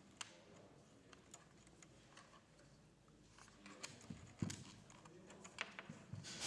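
Faint, scattered small clicks and taps of steel wire rope ends and a metal connector sleeve being handled, with a few louder knocks in the second half.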